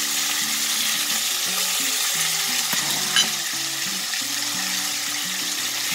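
Salmon fillets searing in hot mustard oil in a pan: a steady sizzle, with one short sharp click about three seconds in.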